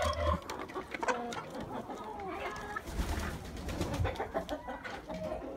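Chickens clucking and murmuring in a string of short, soft calls, with scattered clicks and knocks among them.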